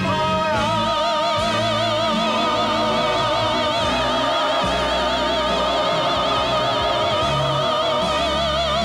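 Choral Christmas song with accompaniment: a voice holds one long, high note with wide vibrato, starting about half a second in, over sustained backing.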